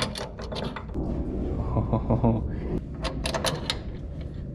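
Metal clicks and light knocks from an axle's outer CV joint being lined up with the wheel hub while the wheel is turned by hand, with a cluster of clicks about three seconds in.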